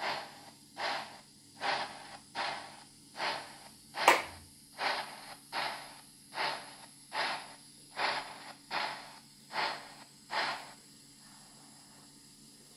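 Sound-equipped H0 model steam locomotive chuffing slowly through its speaker, about fourteen even chuffs roughly 0.8 s apart that stop near the end. A single sharp click about four seconds in is the loudest sound.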